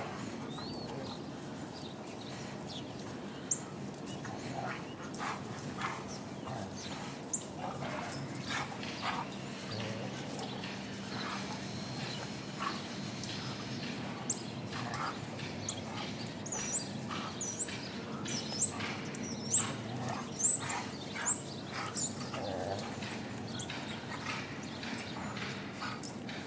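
Two dogs play-fighting, with scattered sharp clicks and scuffling, and a run of short high-pitched yips about once a second in the second half.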